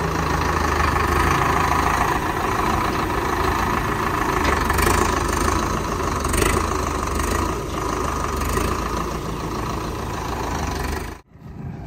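Vehicle engine running steadily, cutting out abruptly near the end and then coming back.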